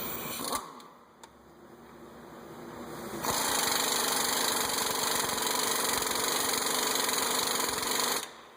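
Air impact wrench running steadily for about five seconds, starting about three seconds in and cutting off near the end.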